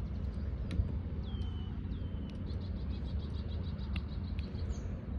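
Small birds chirping, with a quick high trill repeating through the second half, over a steady low wind rumble on the microphone. One light click about a second in, as a putter strikes a golf ball.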